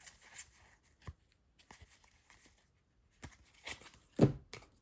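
Trading cards handled and flipped through by hand: soft, scattered rustles and clicks of card stock sliding, with a louder one a little past four seconds in.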